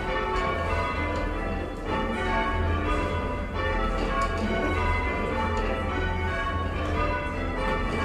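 A ring of six church bells, tenor weight 7-3-20 (about 400 kg), rung full circle in English change ringing: a steady, even stream of overlapping bell strikes, each note ringing on into the next. A steady low rumble sits underneath.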